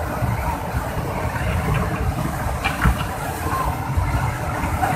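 Muddy flash floodwater laden with logs and debris rushing past in a steady low rumble, with a single thump about three seconds in.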